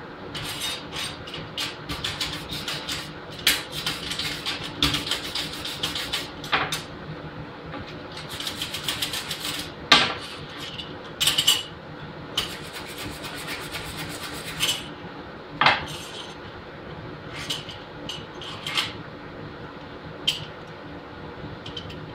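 Irregular metal clinks, taps and short scrapes: a galvanized steel garage door hinge and hand tools being handled and scraped on a metal welding table, busiest in the first half.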